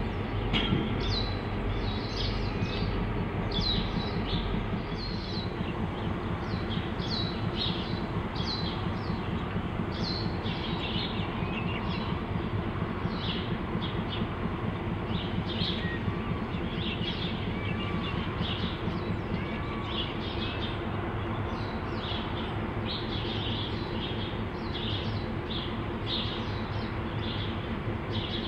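Two KiwiRail DC-class diesel-electric locomotives idling with a steady low drone, with a single clunk about a second in as they couple up to the loaded log wagons. Small birds chirp rapidly and continuously over the engine note.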